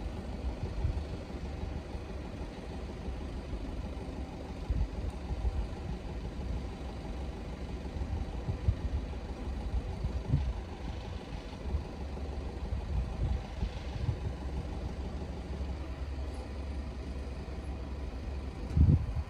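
A vehicle engine running steadily, with irregular low wind buffeting on the microphone.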